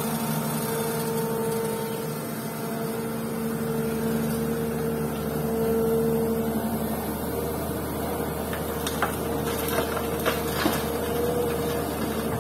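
Komatsu PC200 hydraulic excavator's diesel engine running steadily under load as it digs and swings a bucket of rocky fill. A few sharp knocks come near the end as the load is dumped into the dump truck's bed.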